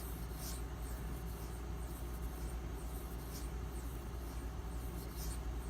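An M390-steel knife blade stroked across a wet Nubatama Ume 8000-grit waterstone in light finishing passes on the rinsed, slurry-free stone. It gives a faint scratch every second or two over a low steady hum.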